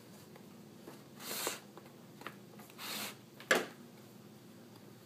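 Leather glove lace drawn through the lace holes twice, each pull a swish of about half a second, followed about three and a half seconds in by a single sharp knock.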